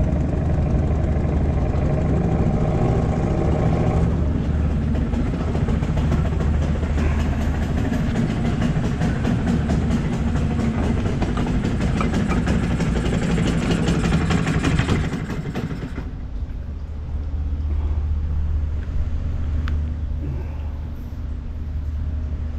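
Small outboard motor running under way with a steady low hum. About fifteen seconds in the brighter, louder part of its noise drops away and a quieter steady low hum carries on.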